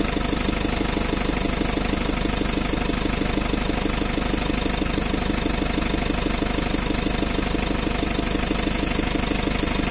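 Toyota Hiace van engine idling steadily with an even, fast rhythm.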